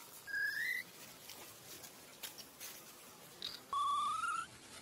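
Newborn monkey giving two high-pitched rising squeals, a short one near the start and a longer one about four seconds in, with faint clicks and rustles between.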